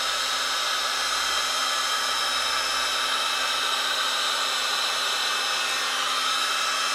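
Electric heat gun running steadily, its fan blowing a constant rush of hot air with a faint steady whine.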